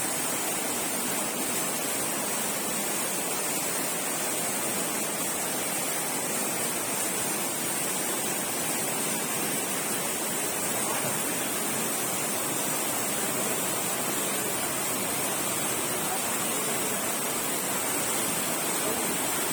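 Floodwater rushing in a swollen stream after heavy rain: a steady, unbroken rush of water.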